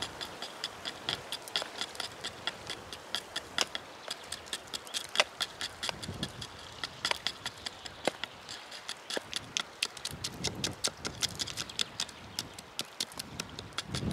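Knife blade scraping and picking hardened resin off a pine trunk's bark: a quick, irregular run of small ticks and scratches, several a second.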